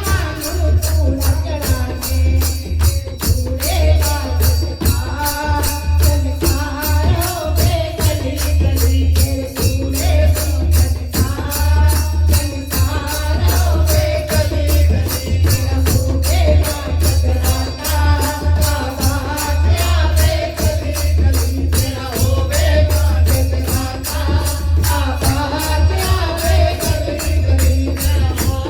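Hindu devotional bhajan (Mata jagrata kirtan) with a sung melody over a fast, steady beat of tambourine-like jingles and a deep drum.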